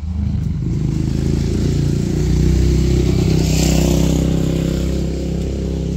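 An engine running steadily, growing louder about two seconds in and easing off near the end.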